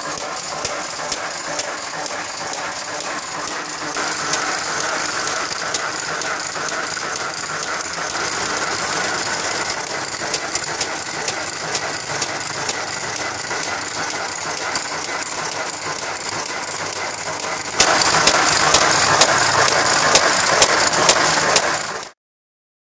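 Electric keropok slicing machine running, its blade cutting blocks of dried keropok dough with a steady rattling noise and frequent sharp clicks. It gets louder about eighteen seconds in and cuts off suddenly near the end.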